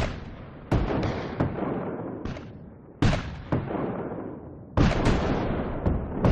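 Heavy gunshots from a sound-effects recording: a run of sharp blasts, each with a long rumbling tail that fades away. The blasts come irregularly, about seven of them, some close together.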